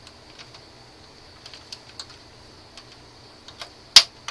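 Light plastic clicks and taps from the Xbox 360's plastic case as its clips are pried loose, with one loud sharp click about four seconds in.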